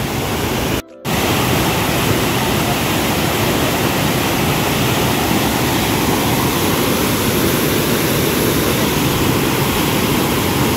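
Waterfall pouring over rock ledges: a steady, loud rush of falling water, broken by a short gap about a second in.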